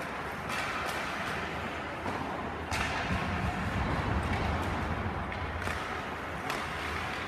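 Ice hockey play: skates scraping the ice under a steady hiss, with about five sharp cracks of sticks, puck and boards. A low rumble swells in the middle.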